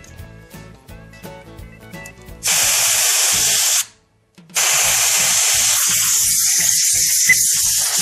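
Aerosol carburetor cleaner sprayed through an extension straw into the fuel passages of a Carter four-barrel carburetor body, flushing out clogged goo. It comes as two long, steady hissing blasts: a short one a couple of seconds in, then a longer one after a brief pause.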